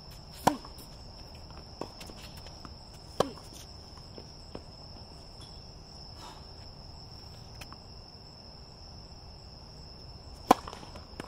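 Tennis racket strings striking the ball with sharp pops: one about half a second in on a forehand, another about three seconds in, and the loudest near the end on a serve, with fainter ball bounces between. A steady high chirring of crickets runs underneath.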